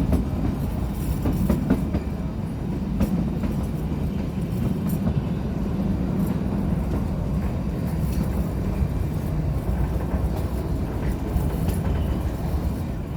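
Narrow-gauge Kalka–Shimla railway train running, a steady low rumble with scattered clicks and knocks from the wheels and carriage.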